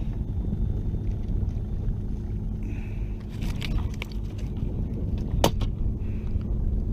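Steady low rumble with a faint hum, broken by a few light clicks and taps about three to four seconds in and one sharp click about five and a half seconds in.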